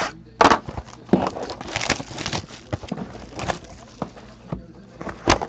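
A cardboard Playbook hockey card box being handled and opened by hand: an irregular run of crackling, scraping and tapping noises.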